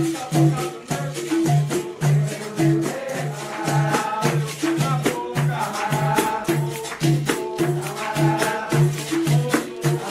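Capoeira music: a berimbau with its caxixi rattle and hand percussion, playing a steady repeating rhythm of low notes a little under two a second.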